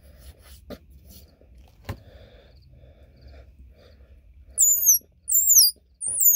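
Lemongrass-blade squirrel call, sounded by sucking air past a lemongrass leaf held under the lip: after a quiet start, three loud, high squeaks about half a second each, each falling in pitch, imitating a squirrel.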